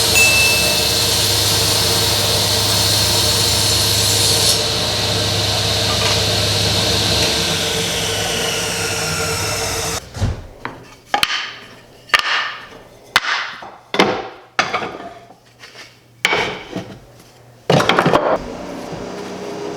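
Table saw running steadily, then winding down with a falling whine. After that comes a series of sharp wooden knocks, roughly one a second.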